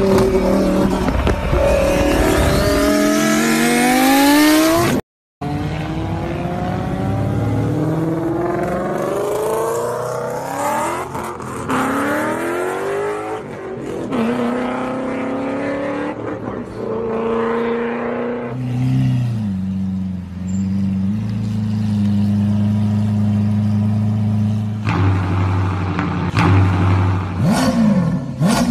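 Small RC off-road truck's electric motor and gears whining, the pitch rising again and again as it speeds up. Later it holds a steady pitch for several seconds, then swings quickly up and down near the end. The sound cuts out briefly about five seconds in.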